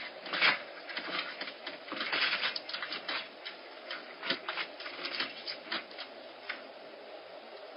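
Bobcat kittens making a rapid, irregular patter of clicks and taps as they move about the wooden deck around a small dish. The clicks are thickest in the first three seconds and die out about six and a half seconds in, over a steady faint hiss.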